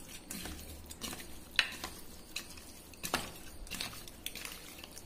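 Raw boneless chicken pieces being mixed by hand with masala in a bowl to marinate, with a few sharp clicks against the bowl; the loudest come about a second and a half in and again about three seconds in.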